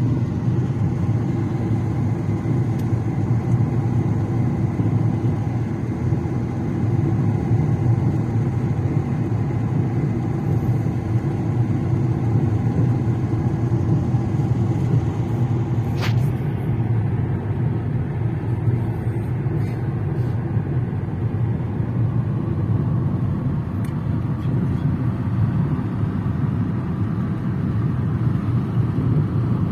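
Steady engine and tyre rumble of a car driving at an even speed on the road, with a single sharp tick about halfway through.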